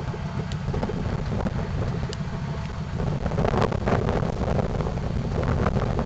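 1998 Ford Crown Victoria Police Interceptor's 4.6-litre V8 running, with the rapid low puffing of an exhaust leak and bursts of crackle, a little louder about halfway through. Wind buffets the microphone.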